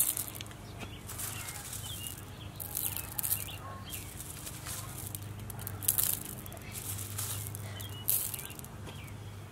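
Small gravel pebbles clicking and rattling against each other as a hand picks through and shifts them, in several short scattered bursts.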